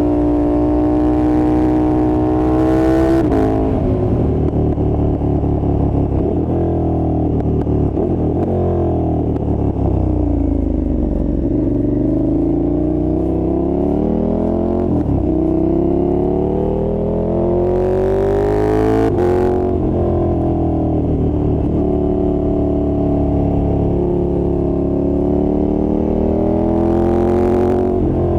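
2020 KTM 1290 Super Duke R V-twin under hard acceleration, its pitch climbing and then dropping sharply at clutchless quickshifter upshifts, about 3 seconds in and again near 20 seconds and near the end. In the middle the revs sag and then climb again.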